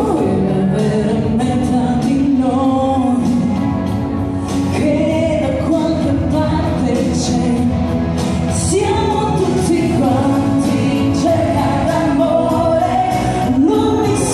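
A woman singing live through a microphone and PA with instrumental accompaniment, holding long notes with vibrato.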